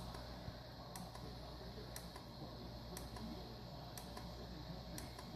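3D printer print head running, with sharp, regular clicks about once a second over a steady low hum.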